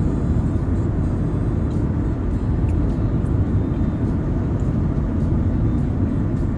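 Steady low rumble of a car at rest with its engine idling, heard from inside the cabin.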